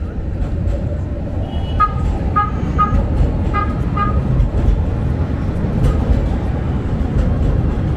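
Street traffic rumble with a vehicle horn tooting about five short times in quick succession, about two seconds in.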